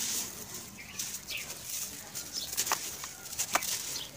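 Hands crushing crumbly grey sandy chunks in a plastic tub: a gritty, hissing crumble of grains and powder pouring between the fingers, with two sharper crunches in the second half.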